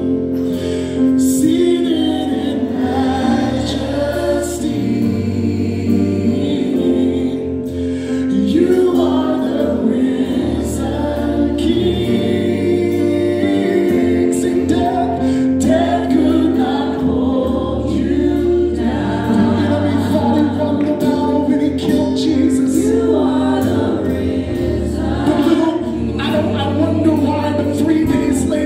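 Live praise band and singers performing a gospel worship song: a male lead singer with backing vocalists over sustained keyboard chords, bass and drums.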